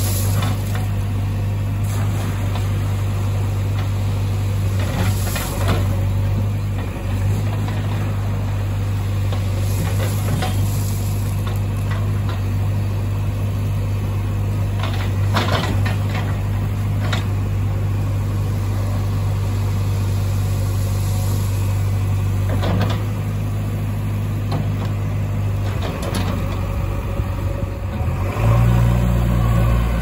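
JCB 3DX backhoe loader's diesel engine running steadily as the backhoe bucket works gravel, with short clattering knocks of stone and bucket at intervals. About two seconds before the end the engine revs up louder.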